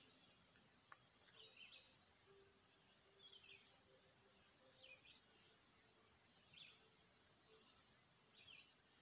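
Very faint bird calling over and over, a short chirping phrase about every second and a half, over a low hiss, with one faint click about a second in.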